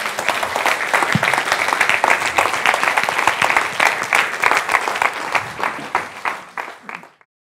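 Audience applauding with many hands clapping, growing gradually fainter and cutting off near the end.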